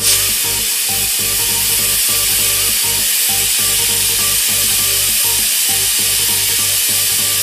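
Pressure cooker on a gas burner venting steam through its whistle: a loud, steady hiss that starts suddenly.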